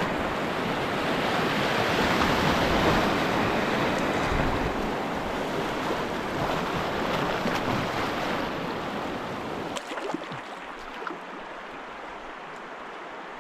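Rushing whitewater of a river rapid, a steady noisy rush with wind buffeting the microphone. About ten seconds in it drops to a quieter, thinner rush.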